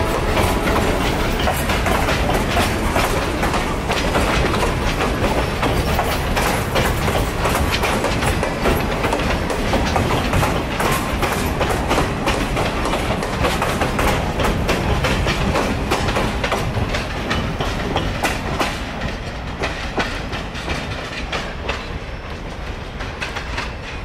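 Freight train of boxcars and gondolas rolling past, a steady rumble with dense rapid clicking of steel wheels over the track. It grows a little quieter over the last few seconds as the last cars go by.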